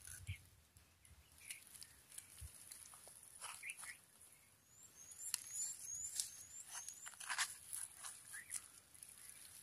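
Faint soft crunches and scrapes of a knife cutting and scooping juicy watermelon flesh from the rind, over a steady high hiss. A bird gives five quick rising chirps about five seconds in.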